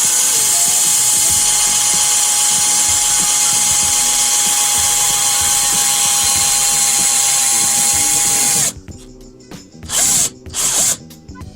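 Power drill running steadily as it bores a hole through a car's bumper and fender. It cuts off suddenly near the end, then runs again in two short bursts.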